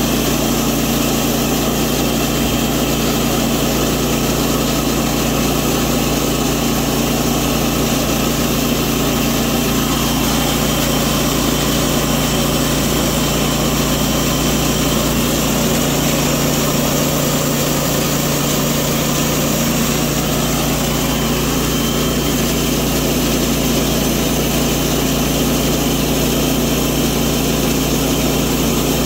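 Woodland Mills HM122 portable bandsaw mill's gas engine running steadily while the band blade saws a slab off a pecan log.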